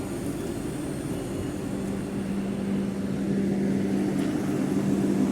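Vande Bharat Express electric train set running with a steady low hum, growing a little louder near the end.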